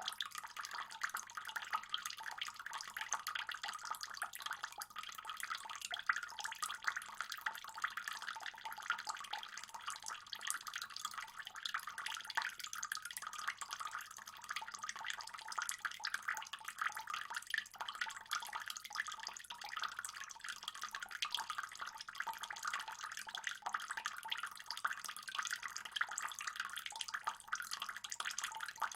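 Water trickling and splashing steadily in a fish pond, a dense even patter of small drops.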